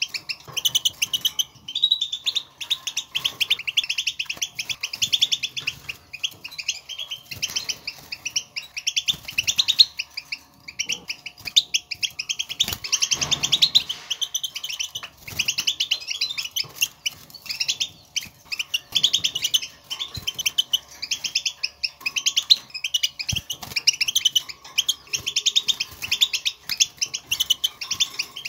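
European goldfinches twittering: rapid, nearly unbroken runs of high chirps. These are the contact calls goldfinches use to call to one another, known to set other goldfinches singing.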